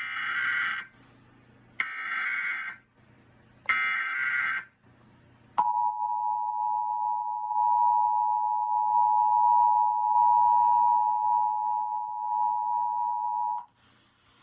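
Emergency Alert System test signal. It opens with three short bursts of buzzing SAME header data tones about two seconds apart. Then comes the EAS attention signal, a steady two-tone 853/960 Hz tone held for about eight seconds before it cuts off.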